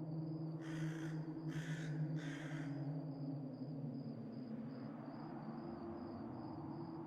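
A crow cawing three times in quick succession about a second in. Under it runs a low, steady ambient drone and a faint, evenly pulsing high tone.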